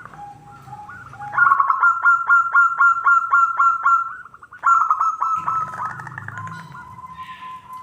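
Zebra doves (perkutut) calling: a fast run of short, repeated staccato cooing notes lasting a few seconds, then a second, shorter run, then one long held note toward the end.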